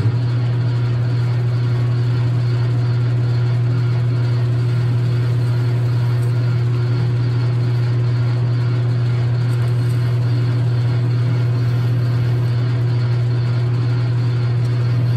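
Logan 6560 metal lathe running steadily with a low, even hum, its chuck spinning nylon bar stock at the start of the drilling step.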